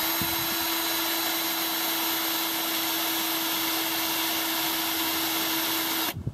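Cordless drill boring a hole through a metal stringer, its motor running at a steady speed with a steady whine, then stopping abruptly near the end.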